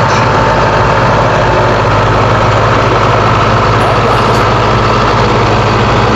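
Heavy vehicle engine running steadily at idle, a continuous low drone.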